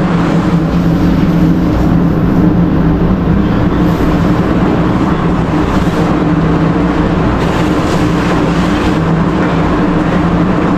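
Steady, loud machinery drone with an unchanging low hum, heard in a ship's enclosed vehicle deck.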